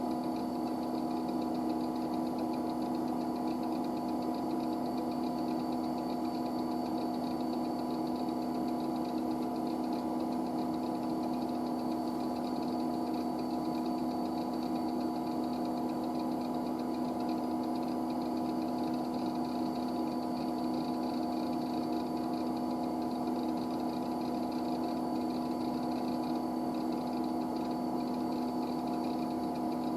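IBM 9535 running: a steady mechanical hum made of several constant tones over an even whir.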